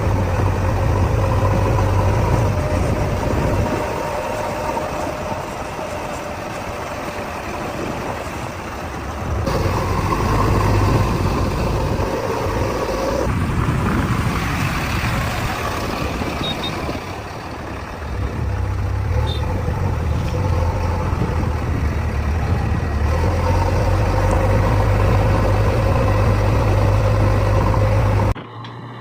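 Diesel engine of a backhoe loader at work, running with a steady low hum whose revs rise and fall in stretches. The sound drops away suddenly near the end.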